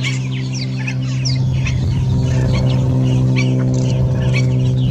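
Many wetland birds giving short, high calls in quick succession, over a steady low droning tone.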